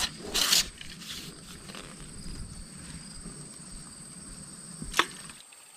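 A quick swish of a fishing rod being swung out over the water near the start, over a steady high-pitched insect drone. A single sharp click about five seconds in.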